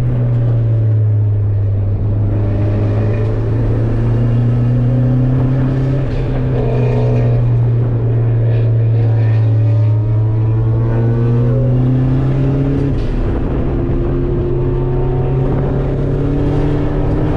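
Track car's engine heard from inside its caged cabin at speed: a loud, steady drone that creeps up in pitch, then jumps up abruptly about two-thirds of the way through.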